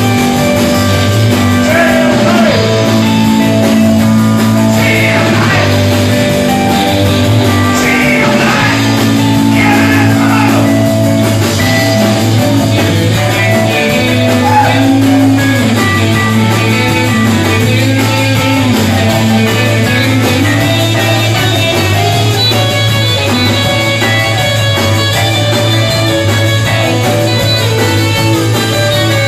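Live rock band playing, with guitar and a singer's voice through roughly the first ten seconds, then instrumental.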